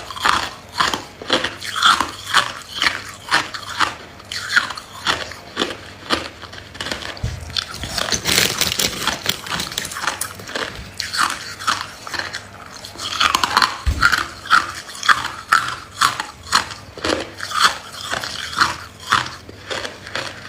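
A person chewing ice close to the microphone: sharp crunches about twice a second, with a stretch of denser, finer crunching in the middle.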